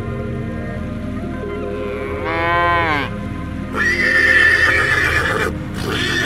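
Animal calls over soft background music: a short call that bends down in pitch just over two seconds in, then a longer, louder, rougher call starting about four seconds in and lasting under two seconds.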